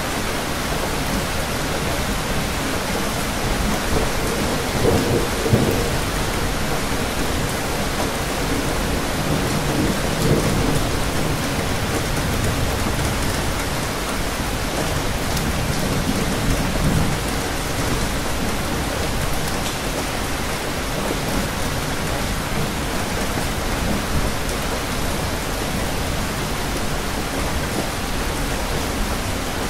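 Steady rain falling, an even hiss throughout, with low thunder rumbles swelling three times, about five, ten and sixteen seconds in.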